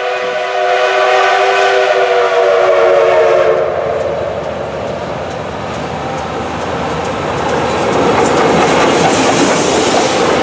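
Reading & Northern 425's steam whistle, a five-chime Rio Grande whistle, blows a long multi-note chord that stops about three and a half seconds in. The 4-6-2 steam locomotive then draws near and passes, its running noise on the rails growing louder toward the end.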